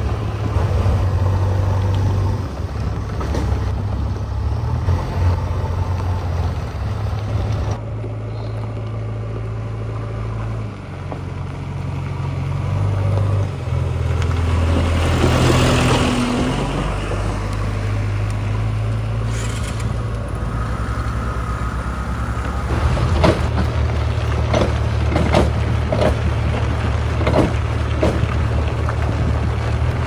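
JCB 3DX backhoe loader's four-cylinder diesel engine running steadily as the machine drives along a road, with a rush of tyre and wind noise as it passes close by about halfway through. Near the end, a run of sharp knocks and rattles sounds over the engine.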